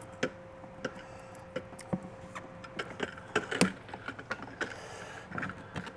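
Irregular light clicks and knocks of cable connectors and plastic against a boat's dash console as cables are pushed and tucked through a mounting hole by hand, the loudest knock about three and a half seconds in.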